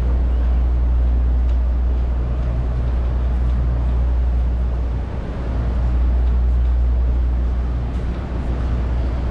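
City street ambience: a steady low rumble of traffic with an even wash of street noise, dipping briefly about five seconds in.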